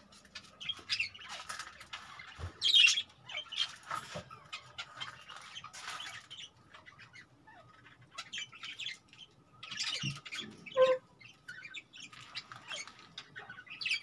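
Exhibition budgerigars chattering, with many short, irregular squawks and chirps and a few louder squawks among them.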